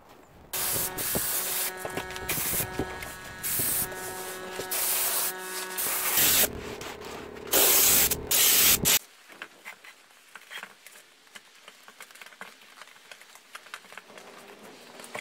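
Aerosol spray can hissing in a series of short and long bursts for about eight seconds, then stopping suddenly. After that, faint rubbing and ticking of hands working a vinyl seat cover.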